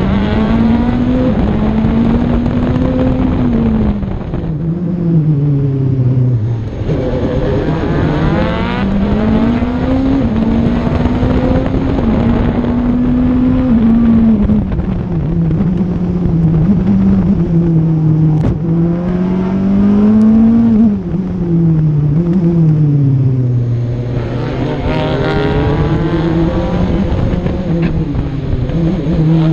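Audi TT-R DTM race car's engine, heard onboard at racing pace, climbing in pitch under acceleration and falling away several times as the car slows for corners.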